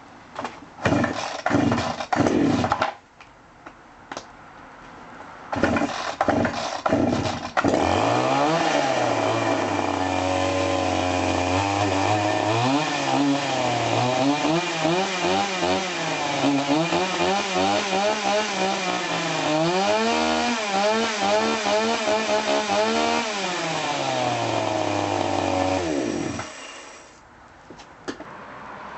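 Rotfuchs RS-5200 two-stroke petrol chainsaw being pull-started. A few rough strokes come first, then it catches after a second set of pulls and settles into idle. It is revved up and down several times and then switched off near the end.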